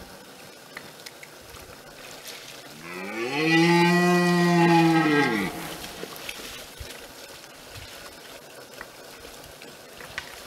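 Red deer stag giving one rutting roar (the brame), a deep bellow about three seconds long that swells up in pitch, holds, then drops away, with light splashing of water around it.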